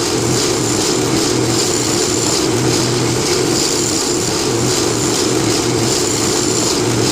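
Wood lathe running steadily as a turning tool cuts down a cherry pipe blank.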